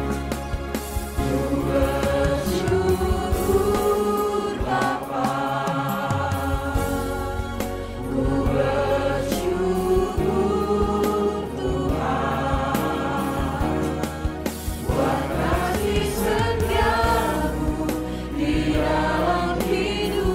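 Virtual choir of men and women singing a church hymn together, their separately recorded voices mixed into one choir.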